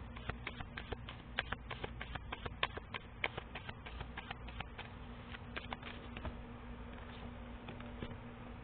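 Tarot cards being shuffled by hand: a quick, irregular run of crisp clicks and snaps that stops about six and a half seconds in.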